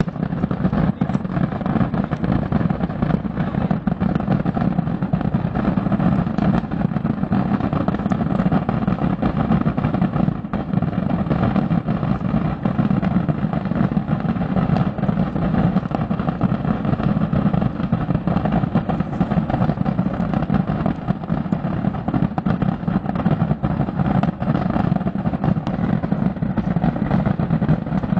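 Mass discharge of firework rockets, thousands of bursts so close together that they run into one continuous rumble with sharper cracks standing out through it.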